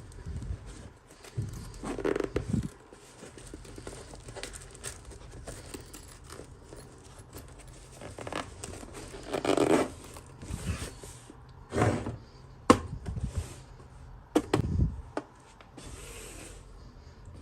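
Toy packaging being unboxed by hand: irregular tearing, scraping and crinkling, with sharp clicks and a few louder bursts.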